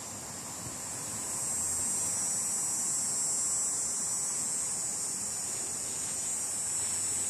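Steady, high-pitched insect chorus, an even hissing drone that swells slightly about a second in.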